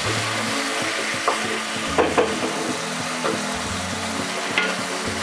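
Spice masala paste sizzling in oil in a nonstick kadai as a wooden spatula stirs it, with a few short scrapes and knocks of the spatula on the pan, the loudest about two seconds in.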